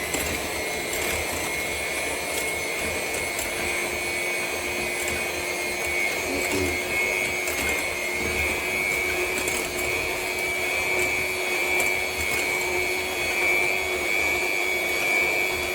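Electric mixer running steadily on its lowest speed, beating cupcake batter, with a constant motor whine.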